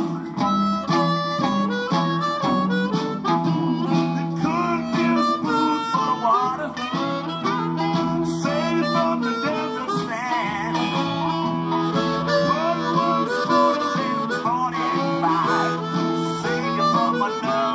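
Amplified blues harmonica, a Hohner Blues Harp in A cupped around a Shure Green Bullet microphone and played through a Boss Katana Mini amp, playing a blues line full of bent, sliding notes. Underneath runs a steady, repeating backing of low held notes with guitar.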